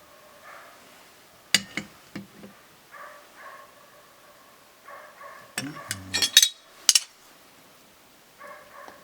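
Dishes and cutlery clinking and knocking: a few light clinks early on, then a quick louder clatter about six seconds in.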